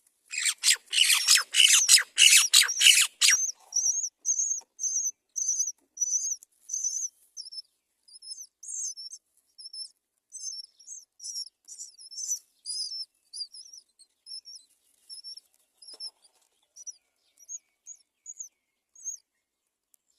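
Nestling mynas begging on the nest. It opens with about three seconds of loud, rapid, harsh calls, then goes on as a run of thin, high chirps, a few a second, that slowly fade.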